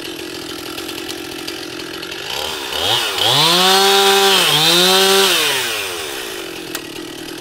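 Two-stroke chainsaw revving up to high speed about three seconds in, dipping briefly and rising again, then winding back down; a steadier engine hum runs underneath throughout.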